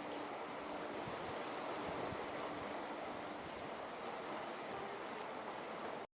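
Steady outdoor rushing noise, like surf or wind, with a faint low hum that comes and goes.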